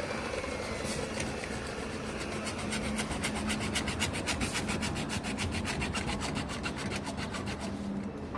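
A hand tool rasping back and forth in fast, even strokes, several a second, as in sawing or filing pipe. The strokes build up over the first few seconds and stop just before the end, over a steady low hum.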